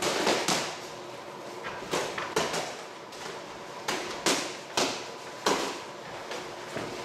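Boxing gloves smacking as punches land during sparring: about ten sharp, irregular hits, several in quick two- and three-punch runs.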